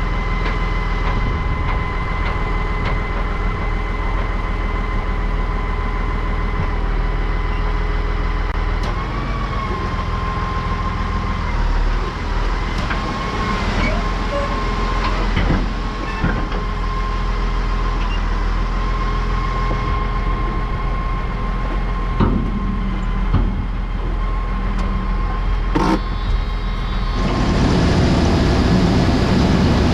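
Tractor engine running steadily, with a steady high whine over it and a few knocks. About 27 seconds in, the sound turns suddenly louder and rougher.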